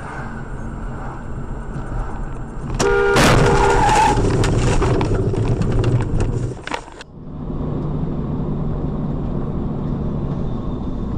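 Dashcam audio from inside a moving car: steady road and engine noise, a short car-horn honk about three seconds in, then several seconds of loud, rough, clattering noise. After a sudden cut near the end, steady engine and road noise with a low hum.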